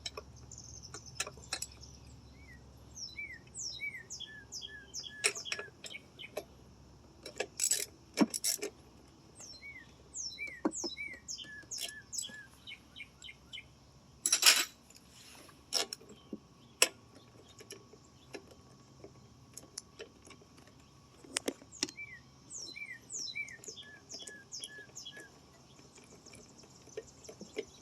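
A songbird singing three phrases of quick, down-slurred whistled notes, one early, one near the middle and one late. Scattered sharp clicks and knocks sound throughout, the loudest about halfway through.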